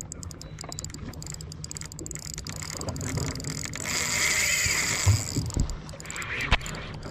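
Fishing reel ratcheting and being wound while a hooked fish is fought, over a steady low rumble, with three sharp knocks in the last two seconds.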